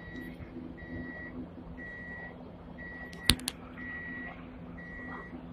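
An electronic beeper sounding a high tone about once a second, each beep about half a second long, over the steady low hum of a Hong Kong tram. Two sharp clicks come just past the middle.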